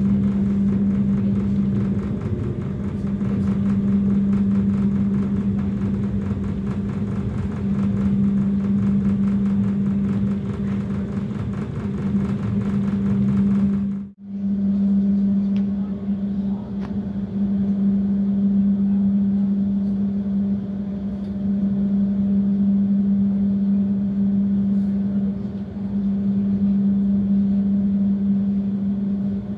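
Passenger train running: a steady hum over a low rumble, which cuts out for a moment about halfway through.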